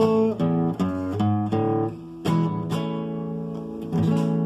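Acoustic guitar (violão) playing the closing chords of a waltz in A major: a run of strummed chords, two more strums, then a final chord about four seconds in that is left ringing.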